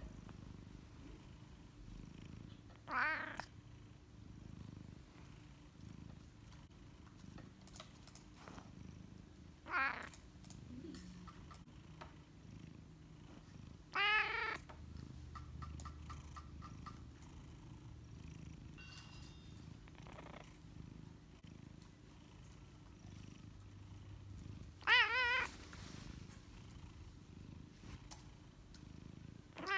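Domestic cat purring steadily while being petted, breaking off four times into a short, wavering meow, the loudest at the last one.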